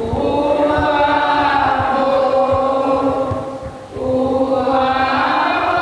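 Voices singing a slow devotional chant in long held notes, with a short break a little under four seconds in before the singing resumes.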